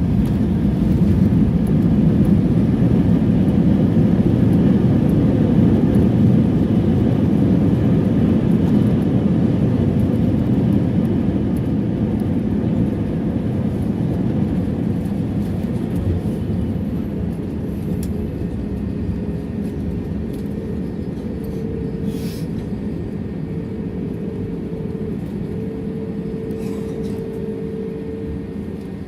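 Airliner cabin noise after touchdown: a loud, deep rumble of engines and airflow that slowly eases as the aircraft slows, with a steady mid-pitched hum joining in, on and off, from about halfway through.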